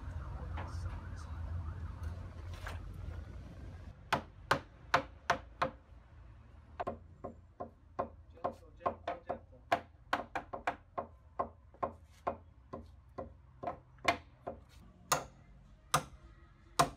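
Hammer striking timber in a run of sharp, irregular blows, about two or three a second, starting a few seconds in. Before the blows, a faint wavering siren-like tone sits over a low hum.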